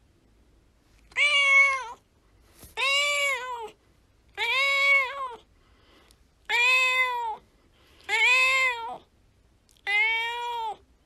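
A domestic cat meowing six times in a steady series, each meow rising then falling in pitch, with short silences between.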